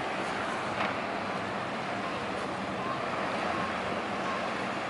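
Motor yacht's engines running steadily as it pulls out of a lock chamber, its propeller wash churning the water behind the stern.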